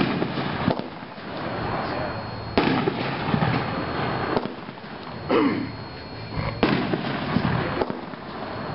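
A 500-gram multi-shot fireworks cake (Winda Super Stunt) firing: four loud shots, at the start and about two and a half, five and six and a half seconds in, each trailing off over a second or so.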